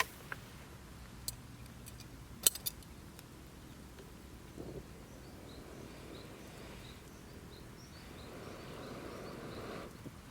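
A few sharp clicks, the loudest about two and a half seconds in, then an egg frying in a pan, its sizzle growing near the end. Faint bird chirps come in the middle.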